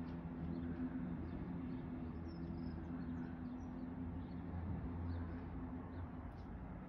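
Steady low hum, with faint high chirps, like small birds, scattered over it.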